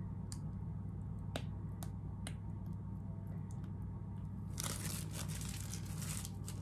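Plastic piping bag crinkling as it is squeezed to pipe choux pastry dough, a few faint clicks in the first half and dense, continuous crinkling from about two-thirds in.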